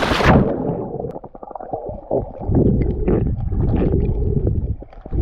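An action camera plunging underwater. The hissy splash and wind noise cuts off about half a second in, leaving muffled low rumbling and gurgling of water with scattered bubble clicks, heard through the submerged waterproof camera.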